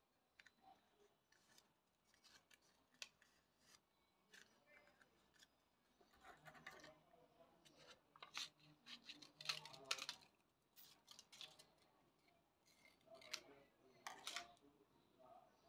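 Faint snips of scissors cutting through a thin paper cone, coming as a run of short cuts in the middle, with scattered light clicks of paper and scissors being handled.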